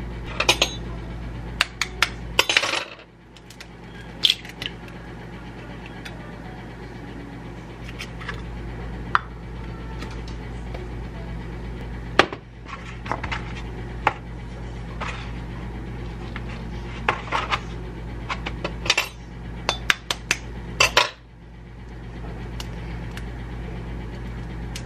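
A knife tapping at a hard duck-egg shell to crack it: sharp, irregular clicks and clinks in clusters, over a steady low hum.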